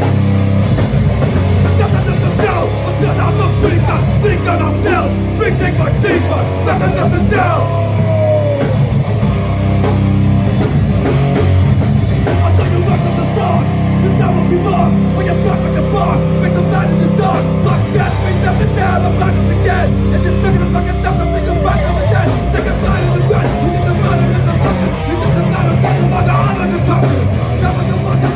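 Rock band playing loudly and without a break. A fast, even beat comes in from about halfway through.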